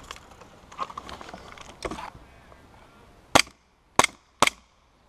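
Airsoft pistol firing three sharp shots about half a second apart, about three seconds in, after a couple of seconds of faint rustling.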